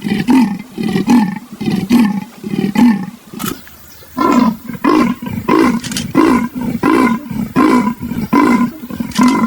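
Leopard's sawing call: a run of hoarse, rasping grunts about two a second, a short pause about three seconds in, then a second, longer run of the same strokes.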